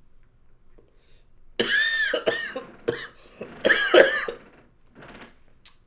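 A person coughing, several harsh coughs in a short fit starting about a second and a half in, with a voiced, wheezy tone caught in some of them.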